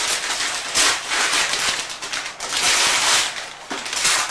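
Wrapping paper being torn and crumpled off a present, a run of crackling rustles in several bursts.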